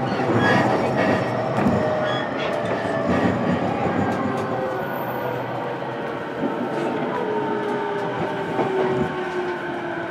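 Inside a JR East E233 series motor car while the train is running: a steady rumble of wheels on rail with scattered clicks from rail joints. The traction motor whine falls steadily in pitch as the train slows.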